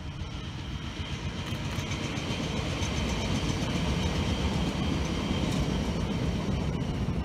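ÖBB electric multiple unit passing on the track: the rumble of its wheels on the rails grows louder as it approaches and stays at its loudest as it goes by, with a faint steady high whine above it.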